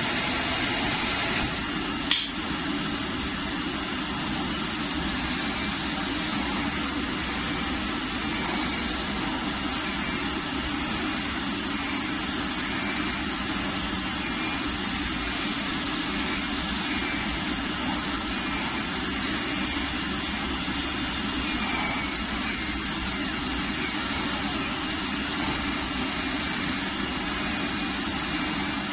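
Auto-loading flatbed digital cutting machine running as its gantry head cuts quilted padding: a steady mechanical whir, with one sharp click about two seconds in.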